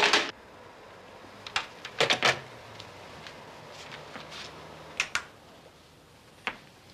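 A telephone handset put down on its cradle with a short clatter, then a few scattered light clicks and knocks in a quiet room.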